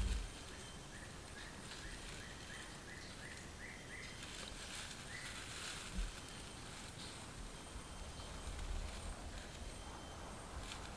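Quiet forest ambience with a run of short chirps, about three a second, rising slightly in pitch over a few seconds. Soft rustling of a dry wood-shaving tinder bundle comes with it, and there is a single soft thump about six seconds in.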